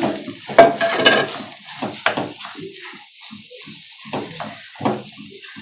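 Ground urad dal paste going into hot oil in a non-stick kadhai, sizzling as it fries, with scraping and a few sharp knocks as it is pushed in from a steel bowl and worked in the pan. The loudest knock and sizzle come just under a second in.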